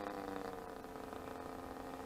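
Distant single-cylinder two-stroke DLE 20cc petrol engine of an RC Sbach 342 aerobatic plane in flight, running on a chainsaw carburettor. Its steady engine note drops slightly in pitch about half a second in, then holds.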